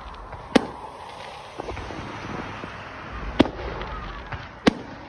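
Fireworks shells bursting in the sky: three sharp bangs, about half a second, three and a half and nearly five seconds in, with a few fainter cracks between them.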